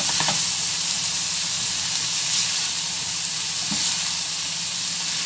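Strips of liver with onion, green pepper and tomato sizzling in hot oil in a frying pan, being stirred, with a couple of light strokes of the spatula against the pan.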